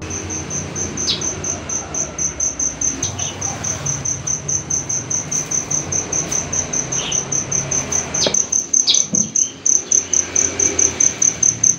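Crickets chirping: a high, even pulsing trill of about four chirps a second, growing louder about eight seconds in. A few light taps and rustles of handling sound over it.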